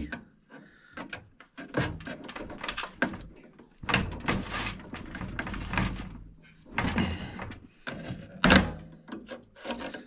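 Side cutters clicking, scraping and knocking against metal inside an opened microwave while the wires are worked off the high-voltage capacitor's terminals: irregular clicks and rubs, with a sharper knock near the end.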